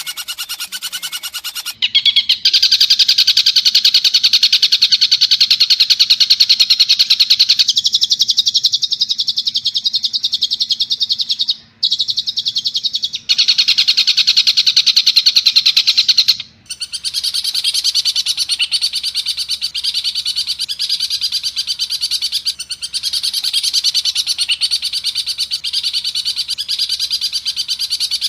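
Long-tailed shrike giving its harsh rapid-fire chatter: a fast, unbroken string of high, rough notes that breaks off abruptly and restarts a few times.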